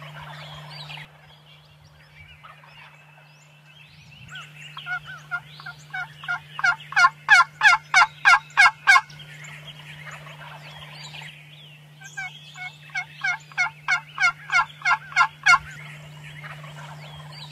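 Turkey yelping: two long series of sharp two-toned yelps at about three a second, each series getting louder, the first starting about five seconds in and the second about twelve seconds in. A steady low hum runs underneath.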